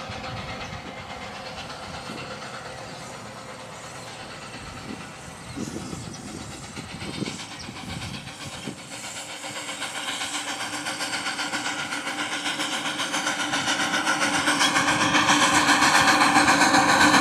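A 16-inch-gauge grand scale steam locomotive approaching with its passenger train, a few sharp clicks around the middle, then its exhaust beats in a quick, even rhythm that grows steadily louder as it draws near.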